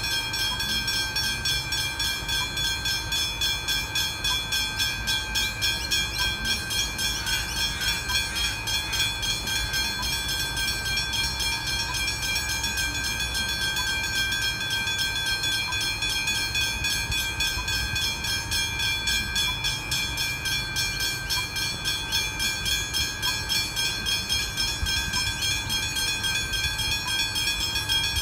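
Railway level crossing warning bell ringing rapidly and continuously while the boom gates are down, the signal that a train is approaching. Road and engine rumble sits low underneath.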